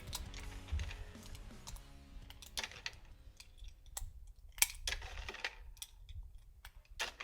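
Scattered light metallic clicks from handling a Glock 43X pistol and its magazine, likely cartridges being pressed into the magazine, over faint background music.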